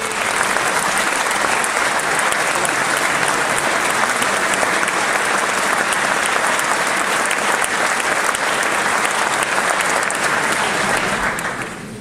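Concert-hall audience applauding: dense, steady clapping from many hands that fades out near the end.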